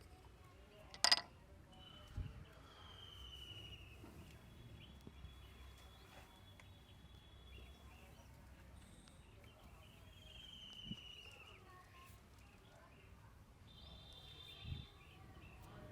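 Birds calling in the background with a few short falling whistles, over a faint outdoor hum. About a second in there is one sharp click, the loudest sound, then a dull thump a second later and a soft knock near the end.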